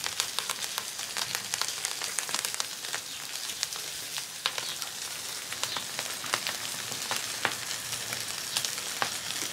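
Food sizzling on a hot comal: a steady hiss with frequent small crackling pops.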